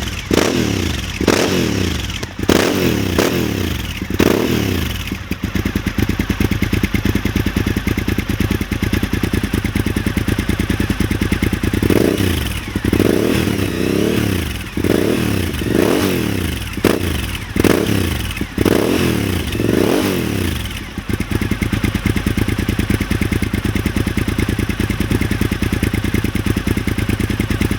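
2006 Suzuki SV1000 S's 90-degree V-twin, breathing through open, nearly straight high-mount carbon exhaust pipes, blipped several times in quick succession and then settling to a steady idle. About twelve seconds in it is blipped again, around eight quick revs, before dropping back to idle.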